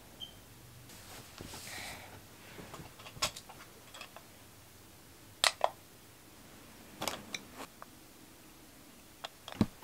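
Soft rustling of a fleece blanket, then a series of sharp clicks and taps as a small digital alarm clock is grabbed and handled, loudest pair about five and a half seconds in.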